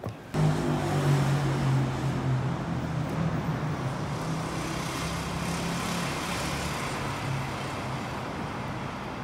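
Traffic noise: a motor vehicle's low engine hum under road noise, starting suddenly and easing off gradually before cutting off near the end.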